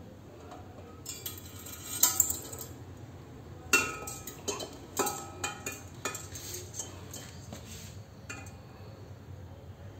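Metal clinks and light clatter from an engraved metal ewer and its small chain being handled and turned: a cluster of clinks about a second in, then a string of sharper knocks from about four to eight seconds in.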